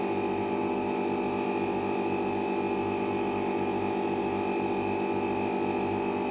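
A steady electrical hum made of several tones, unchanging throughout, from mains-powered equipment running on the repair bench.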